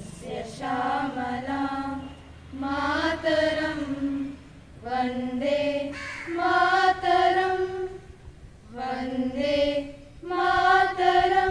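A group of girls singing together unaccompanied, in about five held phrases with short breaks between them.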